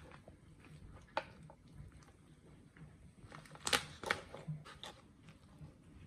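A large kitchen knife cutting up cooked quail on a wooden cutting board: crunching through the small bones and sharp knocks of the blade on the board, with a loud cluster of cuts a little past halfway.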